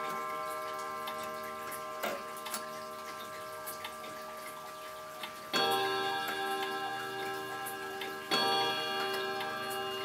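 Antique German HAC bracket clock striking two o'clock: two ringing hour blows about three seconds apart, each left to ring on. Its movement ticks between them, and there is a click about two seconds in.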